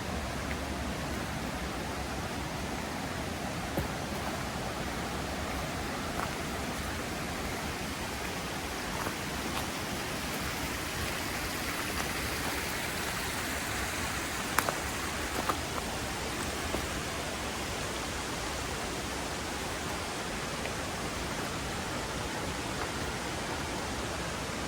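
Mountain river rushing steadily over rocks, a dense even water noise. A few faint brief clicks sound over it, the sharpest a little past halfway.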